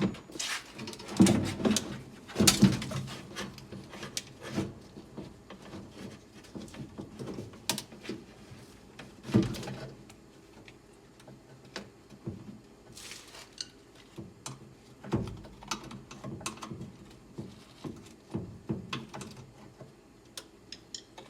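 Irregular clicks, knocks and rattles as the door lock actuator assembly is unbolted and worked out from inside a car door, with a few louder knocks scattered through.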